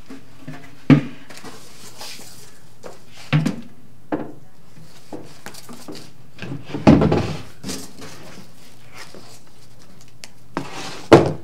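Knocks and thuds from handling a cabinet shelf and cardboard packaging, with a sharp knock about a second in, a few more through the middle and the loudest thud near the end.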